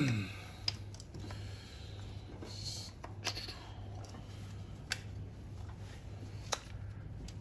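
Small metal parts of a Ford Cortina Mk5 clutch self-adjuster ratchet being handled while its spring is fitted: scattered light clicks and taps, over a steady low hum.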